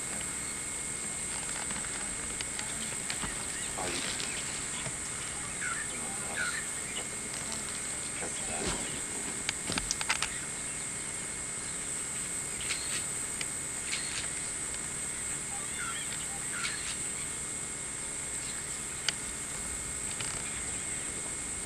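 Steady high-pitched insect drone, with a few short bird chirps and a cluster of sharp clicks about ten seconds in, the loudest sounds, and a single click near the end.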